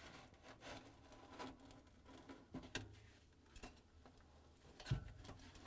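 Faint scattered clicks and scrapes as insulation pads are pried out with a flat-blade screwdriver and pulled from beside a refrigerator's evaporator coil, with a low knock about five seconds in.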